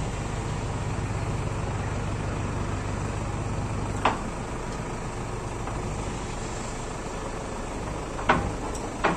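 A steady low engine hum runs in the background. There are three sharp metallic clinks from engine parts being handled: one about four seconds in and two close together near the end.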